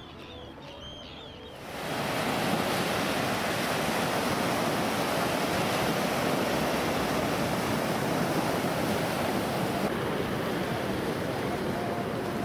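Sea surf breaking and washing up a pebble beach, a steady rush of waves. It starts suddenly about two seconds in, after a quieter moment.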